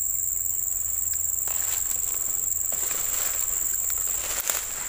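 Steady, high-pitched insect buzz. From about a second and a half in, there is the rustle of grass and brush being pushed through on foot, with one sharp click near the end.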